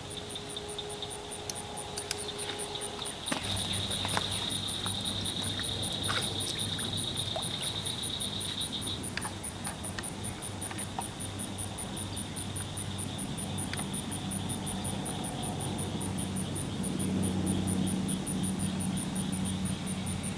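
Insects chirping: an even, very high-pitched pulsing at about four chirps a second, over a steady high buzz that grows louder for several seconds early on. A low steady hum comes in about three seconds in.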